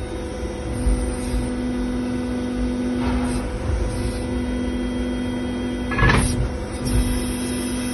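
Idromec PN2700 baler's hydraulic power unit running steadily, with a pump hum that drops out briefly twice as the load changes. A sharp metallic clank sounds about six seconds in.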